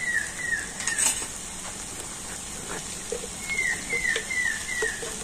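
Grated raw papaya sizzling in a metal kadai, with a spatula clinking against the pan about a second in. A run of short falling chirps sounds over it, four in quick succession near the end.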